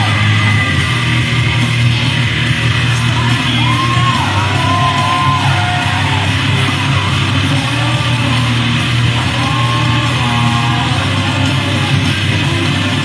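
Loud performance music: a singing voice over guitar and a steady bass.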